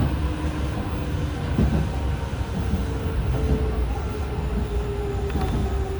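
Hanshin 5001-series electric commuter train running along the line: a steady rumble of wheels on rail with a motor whine held on one note.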